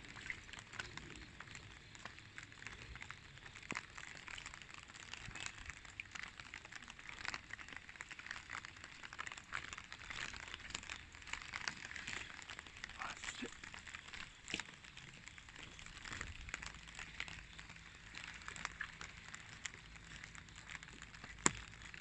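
Faint, steady patter of light rain over a low hum, with one sharper tick near the end.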